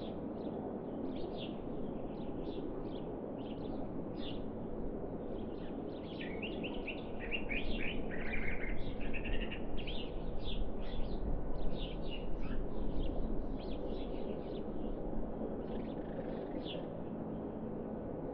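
Small songbirds chirping in quick short calls, over a steady low hum of outdoor background noise that swells for a few seconds in the middle.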